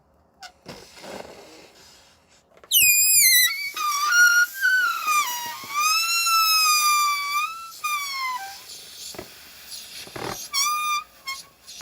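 Rubber balloon deflating with its neck stretched tight, the escaping air letting out a long, high, wavering squeal that slowly drops in pitch. A few faint rubbery rustles come before it, and a couple of shorter squeaks follow near the end.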